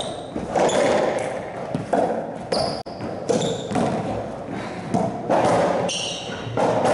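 Irregular thuds echoing in an enclosed racquetball court, about one a second, with short high squeaks of sneakers on the court floor.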